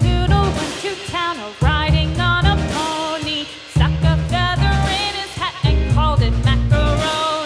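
Background music: a bright melody over a steady drum and bass beat.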